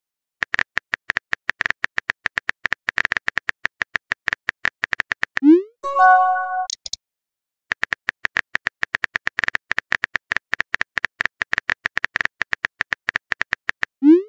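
Texting-app keyboard clicks, fast and irregular, as a message is typed out. About five and a half seconds in, a message-sent sound plays: a short rising swoop, then a bright chime of a few notes. The typing clicks start again about two seconds later.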